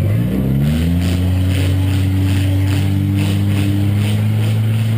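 Small demolition-derby car's engine revving up in the first second, then holding a steady, loud rev.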